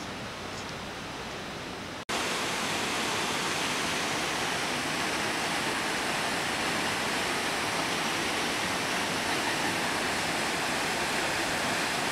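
Steady rushing of water gushing from a dam's outlet into the river pool below. A quieter steady hiss fills the first two seconds, then after a brief dropout the rush is louder and even.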